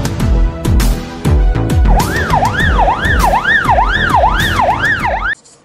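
Electronic intro music with deep, heavy kick-drum beats. About two seconds in, a siren joins with a fast up-and-down wail about twice a second. Music and siren cut off suddenly near the end.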